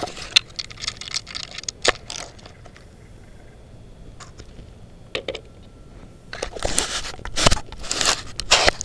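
Scraping, crunching handling noise on an RC truck's onboard camera microphone as the truck is moved about, with no motor running. The noise is quieter in the middle and has several louder knocks and rustles near the end.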